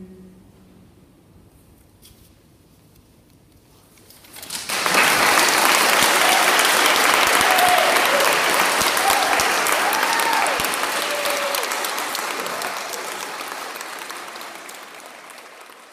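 An audience applauding at the end of a vocal quartet piece: the final sung chord fades out, a hush of about four seconds follows, then clapping breaks out about four seconds in, with a few short cheers, and slowly dies down near the end.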